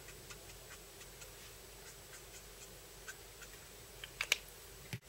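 Copic alcohol marker's felt nib flicking over paper in light strokes, making faint, irregular little ticks. A few sharper clicks come a little after four seconds.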